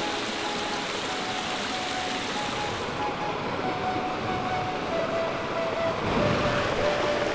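Mountain stream rushing over rocks, louder and fuller about six seconds in, under a soft background melody of slow held notes.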